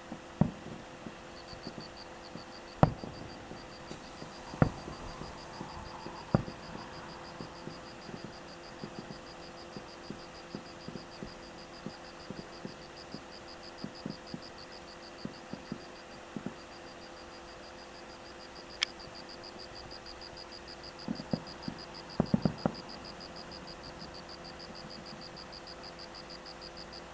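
Distant fireworks going off: sharp booms, a few loud ones in the first seven seconds and a quick cluster about 21 to 23 seconds in, with many fainter pops between. Underneath runs a steady high-pitched rapid chirping that breaks off briefly around the middle.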